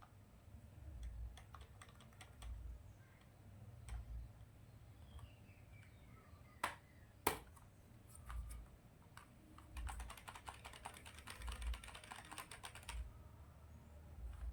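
Typing on a computer keyboard: scattered keystrokes, two sharper clicks about midway, then a quick run of rapid keystrokes for about three seconds near the end.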